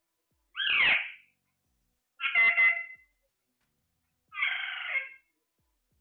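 Alexandrine parakeet calling: three separate squawks, each under a second long, about two seconds apart.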